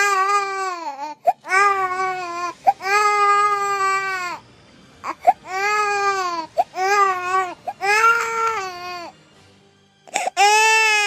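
Infant crying loudly in a string of long wails, each broken by a quick gasping breath. The crying pauses about nine seconds in, then starts up again near the end.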